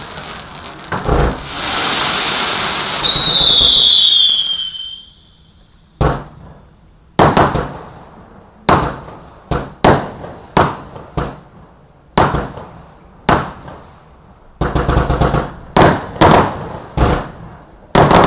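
A consumer firework going off: about four seconds of loud hissing with falling whistles, then a string of a dozen or more sharp bangs, roughly one a second and sometimes closer together.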